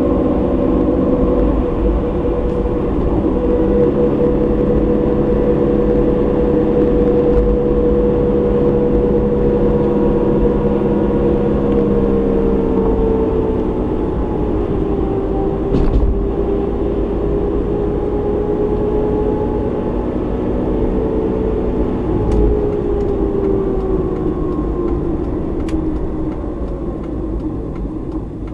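Car engine and tyre noise heard from inside the cabin while driving, the engine hum drifting slowly in pitch. There are two brief thumps from the road, about halfway through and a few seconds later, and the noise eases off near the end.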